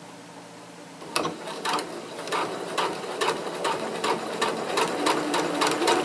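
Computerized sewing machine starts about a second in and stitches a hem with a twin needle at a long stitch length, with about two to three needle clicks a second over its motor hum.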